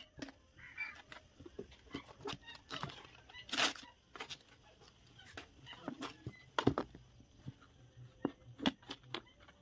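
Two kittens play-fighting on a padded seat: scattered soft scuffles, scratches and clicks of paws and bodies moving. There is a louder rustling burst about three and a half seconds in and a sharp knock near seven seconds.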